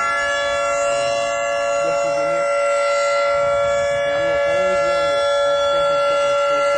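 Federal Signal 3T22 three-tone electromechanical tornado siren sounding its steady alert, a held chord of several pitches at once with no rise or fall.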